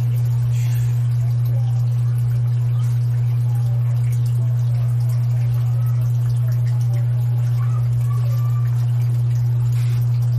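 A loud, steady low hum that holds one unchanging pitch, with only faint small sounds beneath it.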